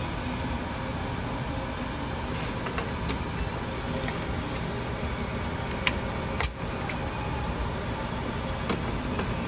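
A handful of short, sharp metal clinks from a steel babbitting jig and hand tools being worked, the loudest about six and a half seconds in, over steady shop noise.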